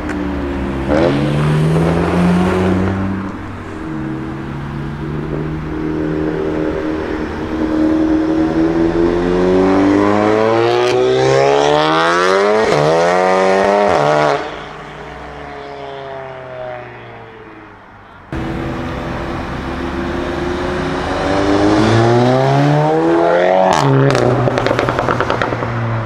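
Stage 2 tuned Seat Leon Cupra turbocharged four-cylinder engines accelerating hard. The engine note climbs through the revs for several seconds and then drops off suddenly. A second pull near the end climbs again and ends in a few sharp exhaust cracks.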